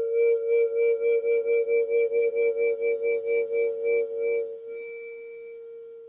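A struck bell or bowl ringing on, one steady tone with a wavering pulse of about four to five beats a second, slowly dying away.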